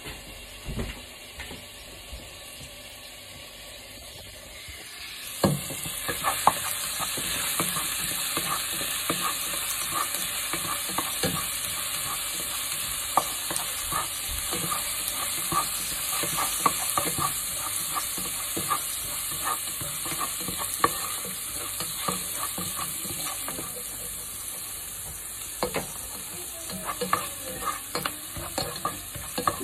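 Crushed garlic sizzling in hot oil in a nonstick pan, stirred with a spatula that clicks and scrapes against the pan. The sizzle jumps much louder about five seconds in.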